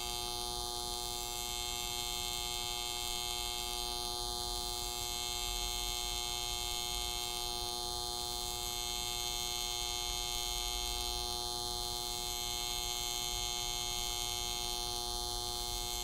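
Simulated TIG welding arc sound from a Soldamatic augmented-reality welding trainer: a steady electric buzz with a high whine, swelling slightly about every four seconds as the torch works along the joint.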